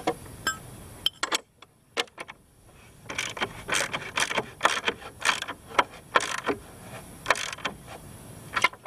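Ratchet and socket tightening a bolt through lumber: a few metal clinks as the wrench and socket are fitted, then from about three seconds in, bursts of ratchet clicking on each back-stroke, about two a second.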